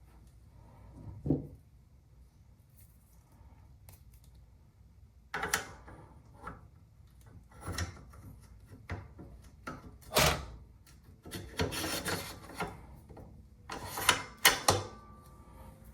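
Rifle parts being handled and fitted together during assembly: scattered knocks and clicks with stretches of rubbing and scraping, the loudest knock about ten seconds in.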